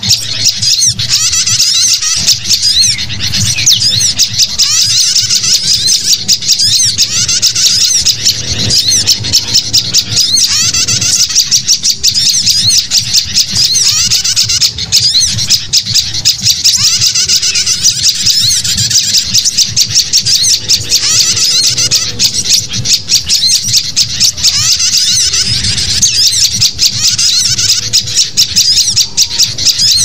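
Dense bird-lure recording of many birds calling at once: the noisy chattering of a sooty-headed bulbul flock layered with sunbird and prinia calls. Rapid, high chirps and squawks follow one another with no pause.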